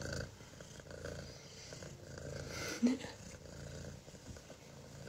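Kitten purring softly, a low steady purr close to the microphone, with one brief pitched sound about three seconds in.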